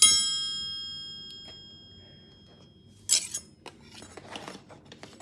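A single sharp clink of kitchenware, a utensil striking a dish or pan, ringing with several clear tones that fade over about two seconds. About three seconds in come a short scrape and light clattering as kitchenware is handled.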